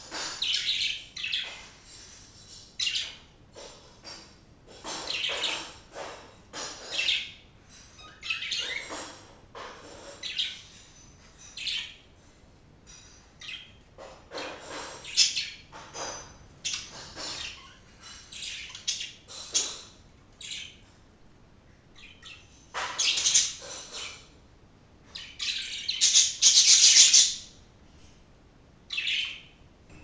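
Pet budgerigars chirping and chattering in short, irregular bursts, with a longer, louder run of chatter near the end.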